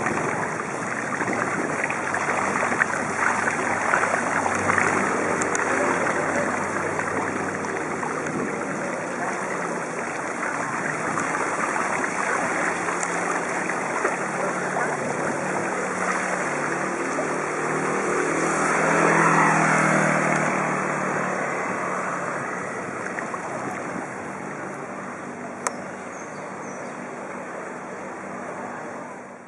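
Wind noise on a bicycle-mounted camera's microphone while riding through floodwater, over a steady wash of water. A motor vehicle swells past about two-thirds of the way through, and a single sharp click sounds near the end.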